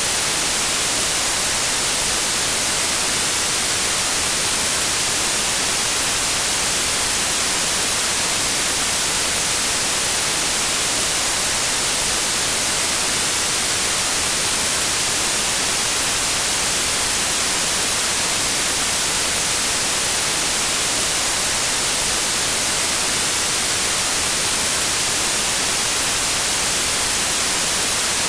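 Steady, unchanging white noise: an even, bright hiss weighted toward the high end, with no variation.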